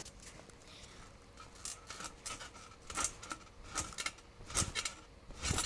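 Irregular soft knocks and rustles from a person moving and bouncing on a trampoline mat, picked up by a phone lying on the mat, coming about once a second towards the end.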